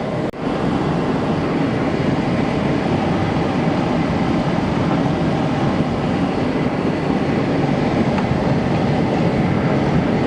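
Forge burner running steadily, a dense even rumble, while the Damascus billet heats to welding temperature. It cuts out very briefly about a third of a second in.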